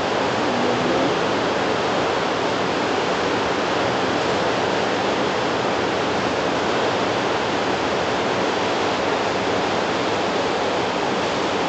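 Steady, even hiss of background noise with nothing else in it: the constant noise floor of the recording.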